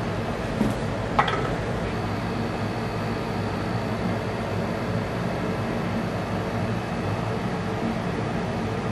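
Steady hum and hiss of room noise. About a second in, a soft knock and then a short sharp click, as small objects are set down on a tabletop.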